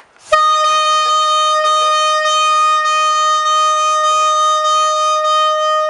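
A compressed-air horn sounding one long, steady blast at a single pitch, lasting about six seconds.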